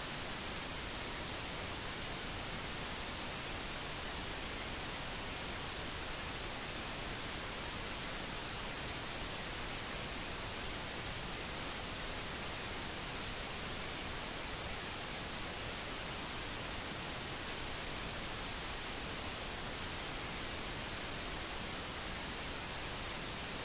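Steady, even hiss like static that never changes, with no other sound standing out above it.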